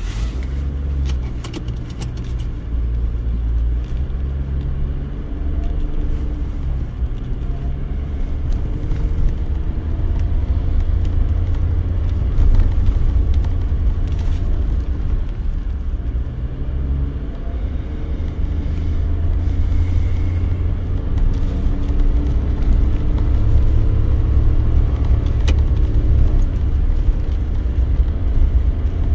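Car engine and road rumble heard from inside the cabin while driving slowly; the engine's low note drifts up and down as the driver works the throttle.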